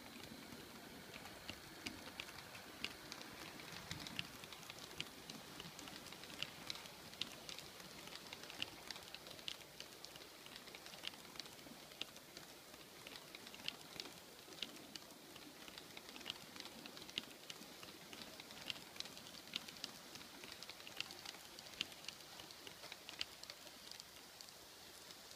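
H0-scale model freight train rolling past: its wagons' metal wheels click irregularly over the rail joints, a few clicks a second over a faint rolling hiss.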